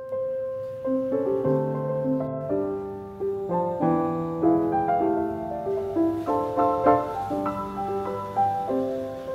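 Background solo piano music, a gentle melody over chords with notes struck one after another.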